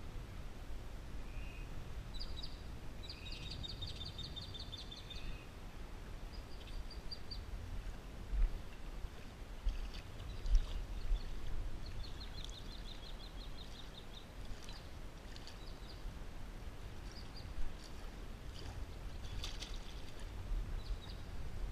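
A songbird singing fast, evenly repeated high trills, twice, with scattered shorter chirps between, over a steady wind rumble on the microphone and a few bumps from handling. Near the end, a short splash as a released bass hits the water.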